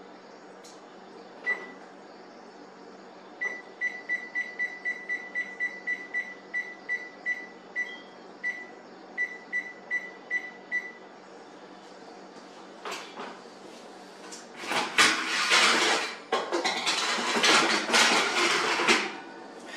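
Electronic oven control panel beeping at each key press while the oven is set to preheat: one beep, then a run of about twenty short beeps in irregular groups. Near the end comes a loud stretch of metal clattering and scraping as the oven rack is moved to the bottom position.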